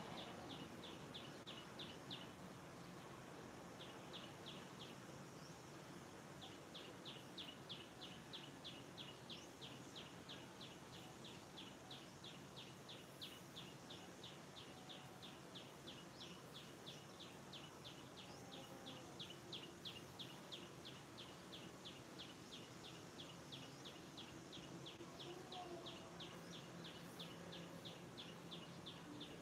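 Faint outdoor background with a high chirp repeated about four or five times a second, first in two short runs, then without a break from about a quarter of the way in.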